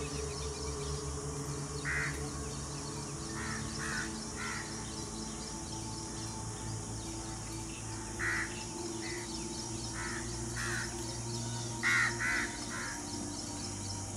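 Short, harsh animal calls, about a dozen in irregular groups of one to three, over a steady low drone and a steady high hiss.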